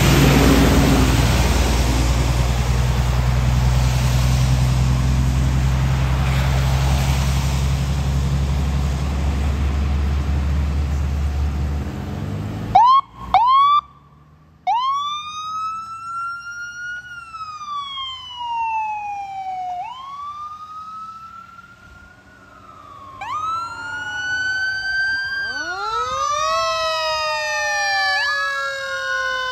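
A heavy truck's diesel engine runs close by with a steady low rumble for the first twelve seconds. Then a few short siren yelps, and an emergency vehicle's electronic siren wails up and down as a rescue ambulance pulls out. In the last few seconds a fire engine's sirens join it, including a lower siren winding up from a deep pitch.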